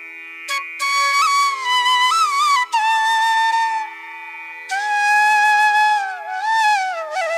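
Background instrumental music: a flute playing long held notes with sliding, ornamented bends over a steady drone.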